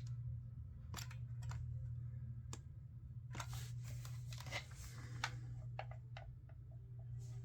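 Scattered plastic clicks and rustling handling noise from a Roborock H6 cordless stick vacuum being handled; its motor never starts, consistent with the vacuum failing to power on. A low steady hum lies underneath.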